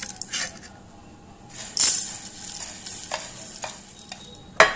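Dry puffed rice poured from a steel bowl into a steel pot: a rustling hiss of grains falling onto metal, which fades a moment in and comes again in a louder burst before the second mark, with small crackles between. A sharp clink sounds near the end.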